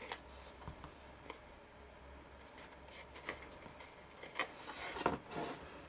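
Hands handling and pressing together folded card panels: scattered small clicks, taps and rustles, with a cluster of louder taps about four to five seconds in.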